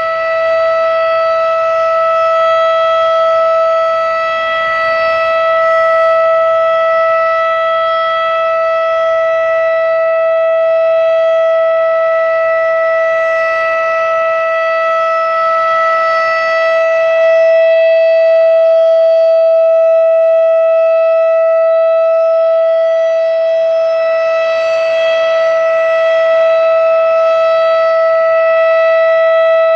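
Federal Signal RSH-10 Thunderbeam rotating outdoor warning siren sounding its steady alert signal: one continuous loud tone held at a fixed pitch, with an undertone beneath it. The sound brightens and dulls slowly as the rotating horn sweeps past, dullest about two-thirds of the way through.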